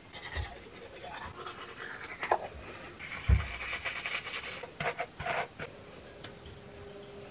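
Toothbrush scrubbing teeth: a scratchy brushing noise broken by a few small knocks and clicks, which stops about five and a half seconds in.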